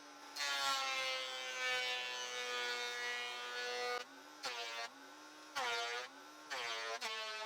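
Portable thickness planer running while boards are fed through: one long pass of about three and a half seconds, then three shorter passes. The motor's pitch drops under load at each pass and recovers between them.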